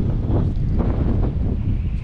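Strong wind buffeting the microphone: a loud, rough low rumble with gusty surges.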